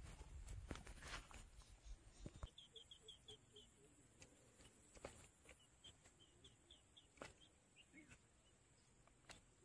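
Near silence with faint bird chirps: a quick run of short repeated notes about two and a half seconds in and another a few seconds later, along with a few faint clicks.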